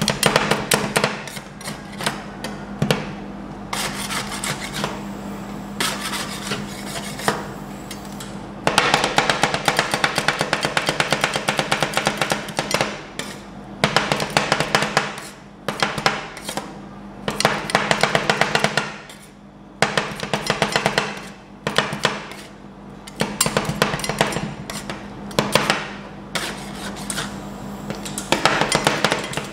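Two metal spatulas chopping on the frozen steel pan of a rolled-ice-cream cold plate: fast clattering strikes in bursts of a few seconds, broken by short pauses, over a steady low hum.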